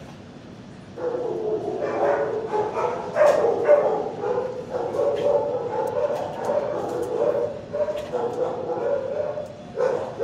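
Dogs barking and yipping in a shelter kennel, a near-continuous din that starts about a second in.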